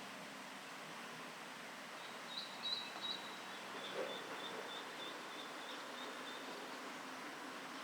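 Spot-billed duck ducklings peeping: a handful of louder high peeps, then a run of fainter, evenly spaced peeps, the calls of chicks left alone and calling for their absent mother. A steady rush of background noise lies under them, with one short knock midway.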